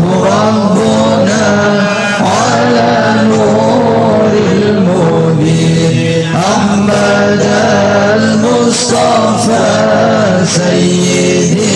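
A male voice chanting a devotional song in long, bending held notes over music, with light percussion strikes scattered through it.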